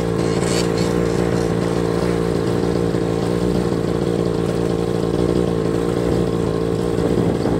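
Quad bike engine running at a steady speed while riding, its pitch holding nearly constant.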